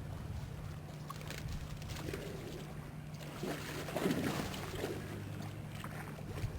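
Small boat's motor running with a steady low hum, with a brief louder noisy burst about four seconds in.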